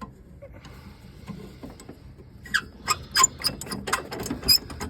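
Spanner work on the metal fittings of a combi boiler being dismantled. After faint handling noise, a quick irregular run of sharp metal clicks and clinks starts about two and a half seconds in.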